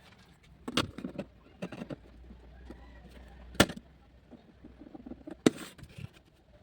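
Irregular sharp knocks and clicks, a quick cluster in the first two seconds, then two louder single knocks about three and a half and five and a half seconds in.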